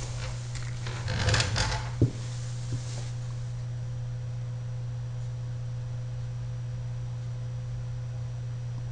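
Brief rustling and shuffling, a sharp click about two seconds in, then a steady low hum with a thin high tone.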